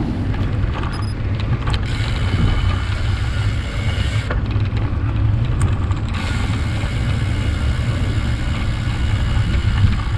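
Wind buffeting the microphone and road rumble from a bicycle rolling along a paved street, heard from a camera mounted on the bike's handlebars. The rumble is loud and steady.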